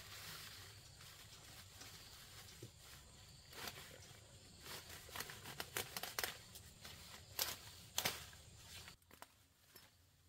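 Leafy plant stems being snapped and torn off by hand, with foliage rustling: a quick run of sharp snaps and crackles, the two loudest about three-quarters through, after which it goes quieter.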